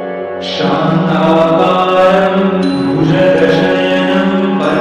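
Devotional music of a chanted mantra over held tones, growing fuller and louder about half a second in.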